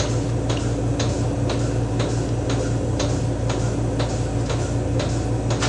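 Vacuum milking machine running on a cow: the pulsator clicks evenly, about twice a second, over a steady low hum.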